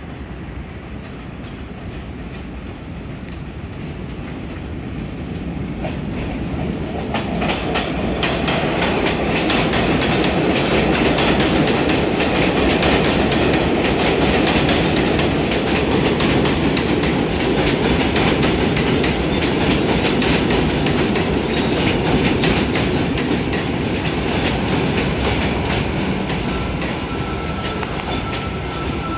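R62 subway train on an elevated line approaching and pulling into the station. Its rumble grows louder from about six seconds in, with rapid clickety-clack of the wheels over the rail joints. A thin steady high tone sets in near the end.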